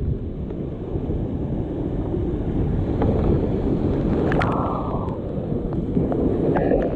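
Whitewater rushing as a kayak runs down a granite slide rapid, the spray hitting the camera, with a louder splash about four and a half seconds in.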